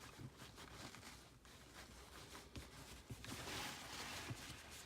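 Faint rustling and light handling noises from a paper towel, with a soft stretch of rubbing about three seconds in.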